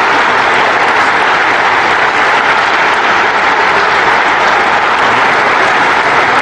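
Arena crowd applauding steadily, a dense even wash of clapping.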